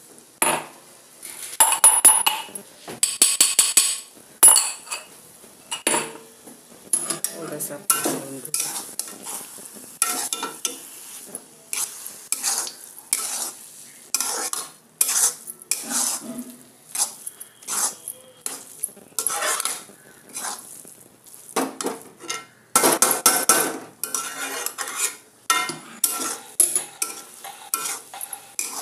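Metal spatula scraping and knocking against a metal kadhai as thick milk-cooked vermicelli is stirred, in irregular strokes with a busier run of fast strokes about two-thirds of the way through.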